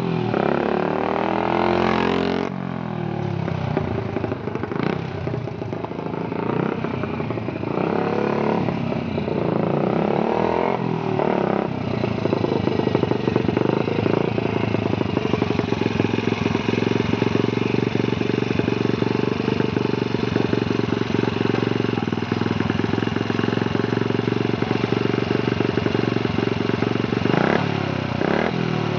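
1968 Sears Allstate Gilera 124cc single-cylinder pushrod engine revving up and dropping back through several gear changes. From about twelve seconds in it settles into a steady, evenly beating run.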